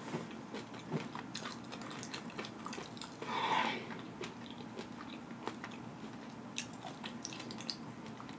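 Close mouth sounds of Paqui Haunted Ghost Pepper tortilla chips being chewed with the mouth closed: soft wet smacking and small clicks, with a brief breath-like sound about three seconds in.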